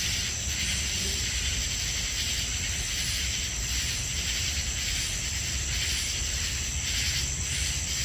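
Summer night insect chorus of crickets and katydids: a steady high-pitched trill with a rhythmic pulsing chorus beneath it, about two pulses a second.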